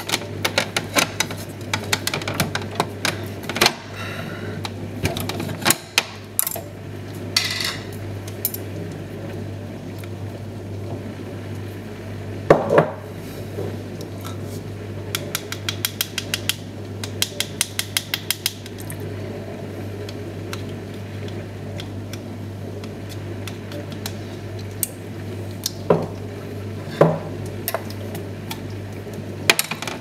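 Kitchen handling sounds: jars and bottles clinking on the fridge door shelves and a spoon clicking against a cup in quick runs, with a few louder knocks, over a steady low hum.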